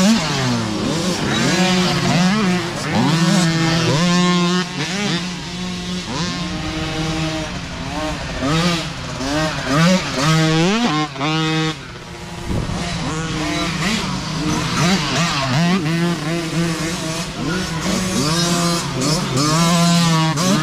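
Micro dirt bikes racing past, their small engines revving up and down as riders come through one after another, several engines overlapping at once.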